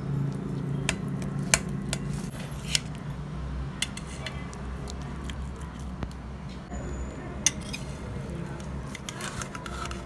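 Kitchen knife tapping and scraping against a stainless steel plate while cutting a set sweet into pieces. Sharp separate clicks come irregularly, the loudest about one and a half seconds in and again about seven and a half seconds in, over a steady low hum.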